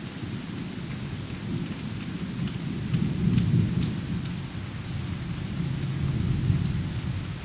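Rolling thunder rumbling low and long over steady rain, swelling about three seconds in and again near six seconds.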